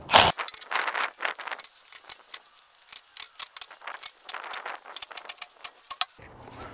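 Irregular light metallic clicking and clinking as bolts are taken out of a hydraulic drive motor's rear brake cap and handled.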